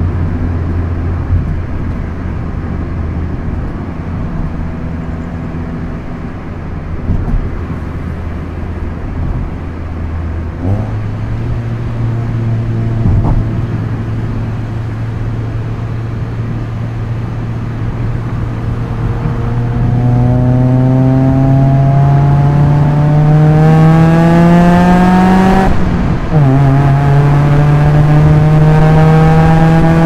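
Proton Inspira's 4B10 MIVEC inline-four with a Supercircuit aftermarket exhaust, driven on a manual gearbox: it runs at steady, low revs, then revs climb steadily under acceleration, fall sharply at an upshift about 26 seconds in, and climb again.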